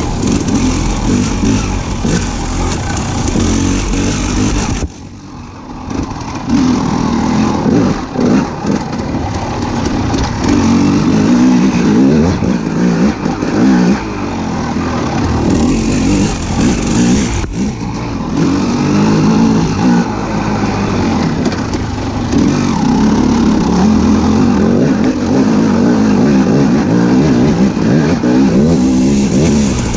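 A motor vehicle engine running, its revs rising and falling. The sound drops away suddenly about five seconds in and again briefly near eighteen seconds.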